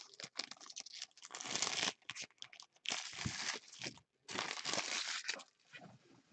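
Foil trading-card pack wrapper crinkling in several bursts as it is handled.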